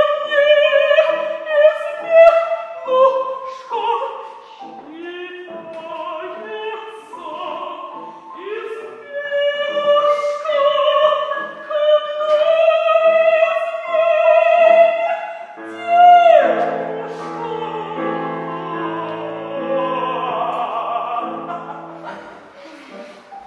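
Operatic soprano singing with vibrato in classical style. About sixteen seconds in the voice slides down from a high note, and lower held notes follow.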